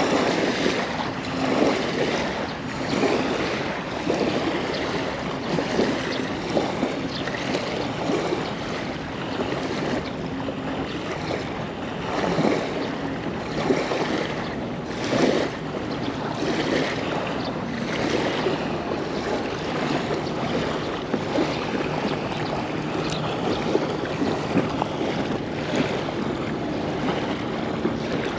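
Small waves lapping and washing onto a sandy river bank in irregular swells, with wind buffeting the microphone.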